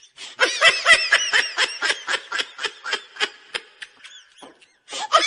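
Rapid, high-pitched laughter in quick repeated bursts. It breaks off briefly near the end, then starts again.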